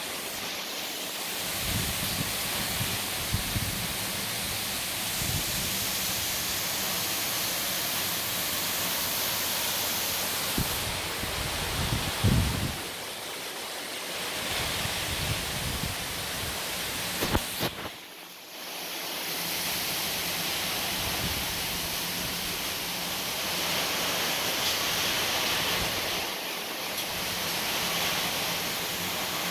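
Heavy tropical rain falling in a steady hiss, with gusts of wind rumbling on the microphone now and then.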